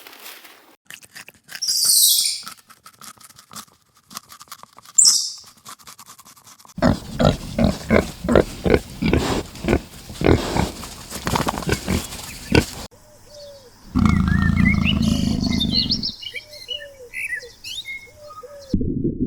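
Several different animal sounds one after another, cut together: two short hissy bursts, a run of quick rhythmic calls, a loud low call, then a series of short chirps.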